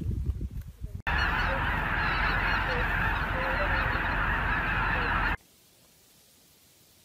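A large flock of geese calling all at once, a dense continuous chorus of honking that starts suddenly about a second in and cuts off abruptly some four seconds later.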